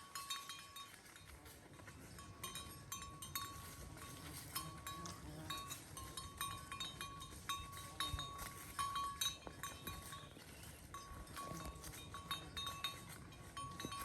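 Cowbells on grazing cattle ringing and clinking unevenly as the animals move their heads and walk.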